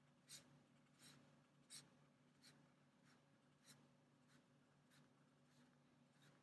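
Colored pencil dabbing small dots and short strokes onto a sheet of shrink plastic: faint, short scratchy taps, about one every two-thirds of a second.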